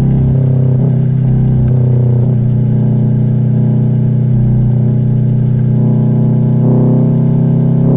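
Exhaust rumble of a 2020 Subaru WRX STI's turbocharged flat-four engine while driving, holding fairly steady revs, with the note shifting slightly about a second in and growing a little fuller near the end.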